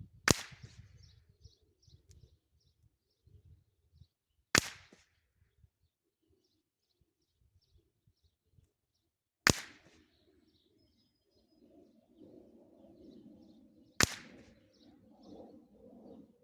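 Ruger 10/22 Tactical .22LR rifle firing four single shots, each a sharp crack, about four to five seconds apart.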